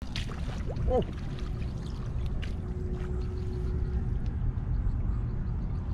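Shallow muddy water sloshing and splashing as a woven bamboo basket is dipped and swept through it, over a steady low rumble, with a short rising-and-falling pitched sound about a second in.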